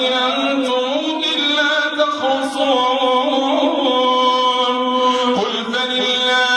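A man chanting Quran recitation (tilawat) into a microphone, a melodic male voice holding long, slowly bending notes. A short thump comes about five and a half seconds in.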